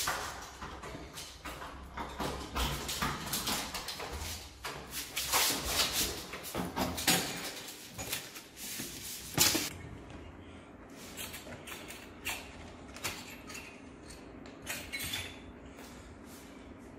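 Footsteps and the knocking and rattling of a plastic pet carrier being carried along a tiled hallway, with one loud bang of a door about nine seconds in. After it, only scattered light taps and clicks over a steady low hum.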